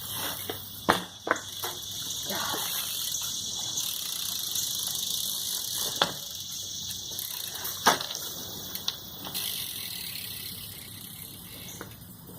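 BMX bike being ridden, its tyres hissing as they roll, with several sharp knocks of the bike hitting the ground; the loudest come about a second in and near eight seconds.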